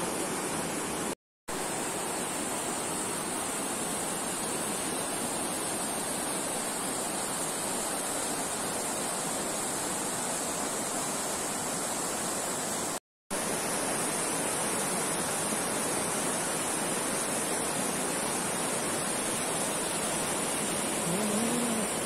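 Fast-flowing shallow mountain river rushing over a gravel and stone bed, a steady hiss of water that cuts out completely twice, about a second in and about thirteen seconds in.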